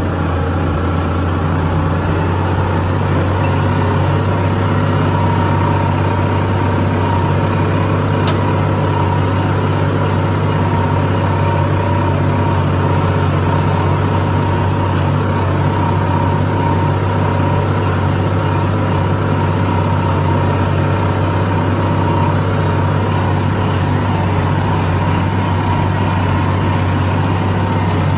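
Farm tractor engine running steadily while pulling a disc harrow through a field, heard from the driver's seat. A low drone is joined by a steady higher whine.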